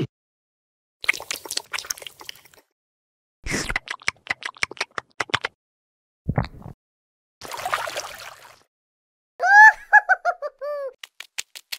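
Stop-motion sound effects for a magnetic-bead figure: bursts of rapid sharp clicks, a short low thud, and a brief hiss. About nine and a half seconds in comes the loudest sound, a cartoon run of quick chirping tones, each bending up then down and stepping lower in pitch.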